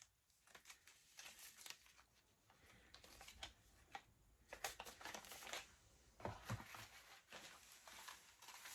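Faint crinkling and rustling of plastic and cardboard packaging being handled, with scattered small clicks and knocks as products are lifted out of a box.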